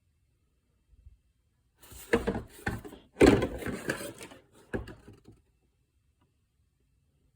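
Handling noise from a plastic impact socket set case and its sockets: a short run of knocks and clatter with a few hard thunks, about two to five seconds in.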